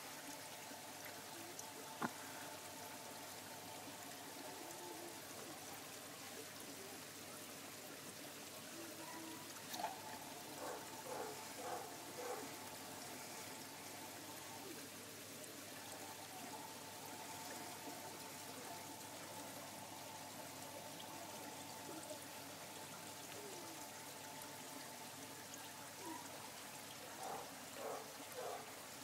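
Water pouring and trickling steadily into a pond, with a faint steady tone under the hiss.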